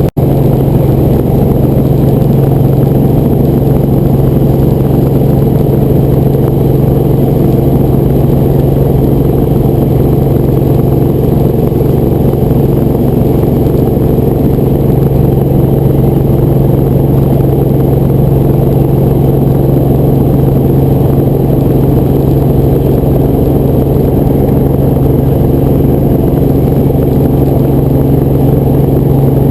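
Helicopter running in flight, heard from inside the cabin: a loud, unchanging low drone of engine and rotors with a steady hum on top. The sound cuts out for an instant at the very start.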